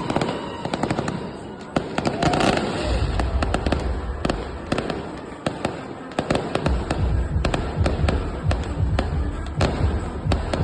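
Fireworks display: rapid sharp bangs and crackling throughout, with heavy low booms setting in about three seconds in and again near seven seconds.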